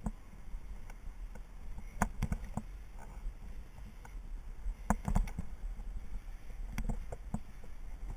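Abseiling down a concrete chimney: a rope-descent rig and the abseiler's contact with the concrete wall make sharp clicks and knocks in four short clusters about two seconds apart. A low wind rumble on the microphone runs under them.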